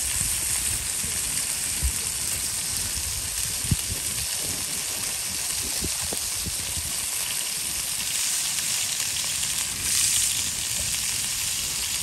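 Chunks of meat sizzling in a cast-iron skillet over a wood campfire: a steady hiss with scattered small pops.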